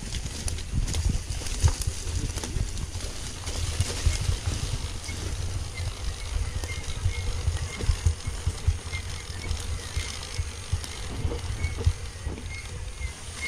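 Wind buffeting the microphone as a steady low rumble, with scattered knocks and rattles, the sound of a mountain bike on rough ground. A faint high chirp repeats through the second half.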